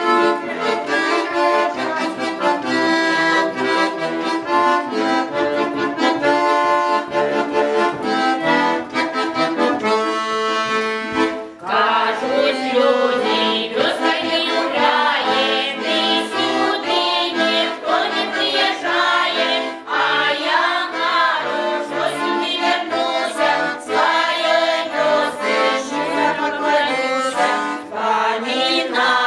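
Accordion playing a folk tune on its own; about twelve seconds in, a choir of women's voices joins, singing a Belarusian folk wedding song over the accordion.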